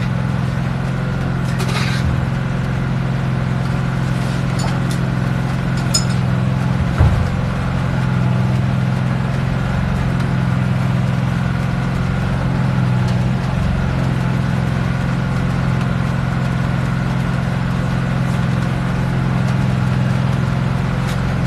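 Portable generator running with a steady, even hum. A few faint clicks and one light knock about seven seconds in.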